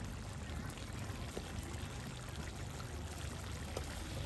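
Steady running water, an even rushing with no breaks.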